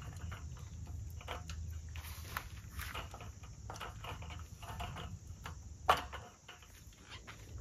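Light clicks and rattles of a folding metal camp table being set up, with one sharp click about six seconds in, over a steady low hum.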